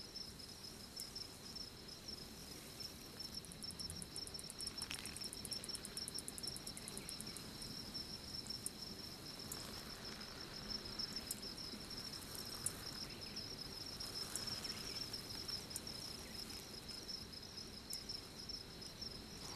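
Crickets chirping steadily at night in a continuous, even trill, with a few faint ticks and soft rustles.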